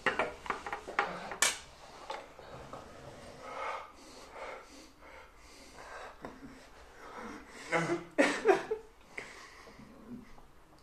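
People breathing hard, sniffing and gasping from the burn of an extremely spicy nut. There are a few sharp clicks and knocks in the first second and a half, and louder breaths about eight seconds in.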